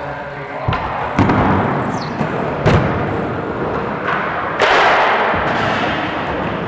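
BMX bike riding on wooden skatepark ramps: tyres rolling with a few thuds of the bike landing and knocking, the loudest a little before three seconds in, then a louder rushing noise from about four and a half seconds in.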